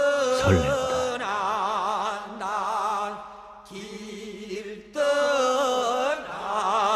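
A drawn-out chanted vocal refrain sung with a strong wavering vibrato, in two long held phrases with a short gap between them. A man's spoken voice briefly overlaps it at the start.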